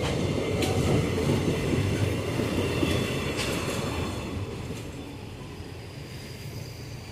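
Empty GDT ore gondola wagons of a freight train rolling past on steel wheels: a heavy rumbling clatter with a few sharp clacks and a faint wheel squeal. The sound fades away from about four seconds in as the last wagon moves off down the track.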